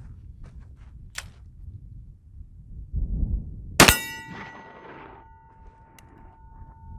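A single shotgun shot with buckshot from a 12-gauge single-shot, and the struck steel target ringing afterwards with a steady metallic tone that lasts several seconds. A little handling noise comes just before the shot.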